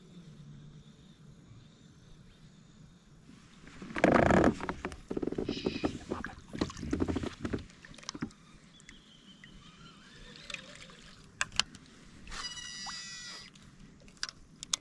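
Water splashing around a kayak: a sudden loud splash about four seconds in, then a few more seconds of splashing and knocking, and a few sharp clicks near the end.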